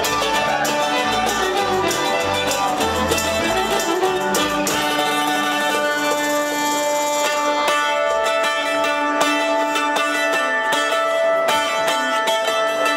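Live band playing an instrumental folk intro: fiddle over a plucked string instrument, with a low bass part that drops out about four and a half seconds in.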